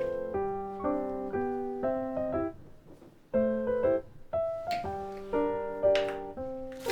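Background piano music playing slow melodic notes, pausing briefly about halfway through.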